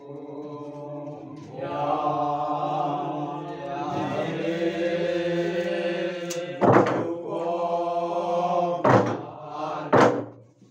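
A group of men chanting together in long held notes, with three loud strikes of wooden beaters on a hollow log drum in the second half.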